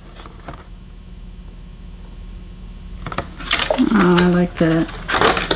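Packaging rustling and crinkling with small handling clicks as items are taken from a subscription box, starting about three seconds in after a quiet start, with a brief wordless hum of a voice in the middle.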